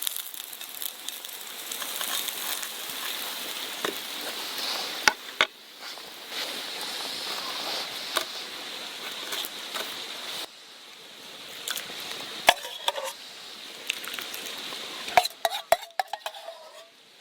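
Food sizzling in a frying pan as it is stirred, with several sharp clinks of a utensil against the pan.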